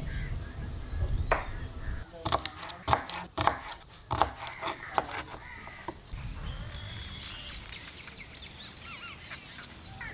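A kitchen knife chopping green beans on a wooden cutting board: a quick run of sharp chops from about two to five and a half seconds in. Birds then chirp in the background.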